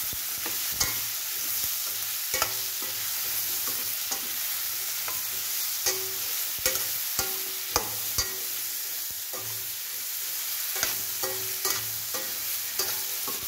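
Diced pumpkin sizzling in hot oil in a stainless steel kadhai, with a steady hiss, while a slotted metal spoon stirs it. The spoon scrapes and knocks against the pan in irregular clicks, about one or two a second.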